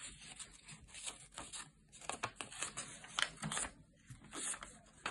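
Square sheet of origami paper being folded in half and creased by hand: soft, irregular rustling and scraping of paper, with a few louder crisp strokes about three seconds in as the fold is pressed flat.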